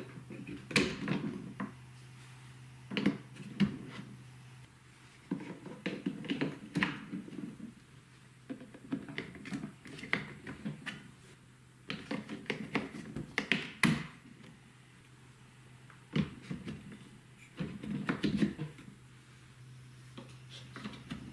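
Marble-run track pieces being handled and fitted onto blue plastic building-block towers: irregular clusters of clicks, taps and light knocks of wood and plastic pieces against each other, coming every second or two.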